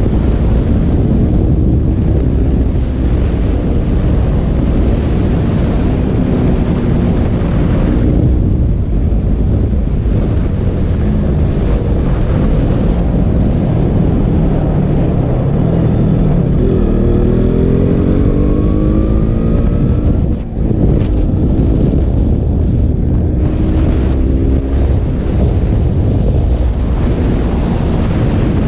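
KTM RC 200's single-cylinder engine running at road speed, its revs rising and falling, under heavy wind rumble on the rider's microphone.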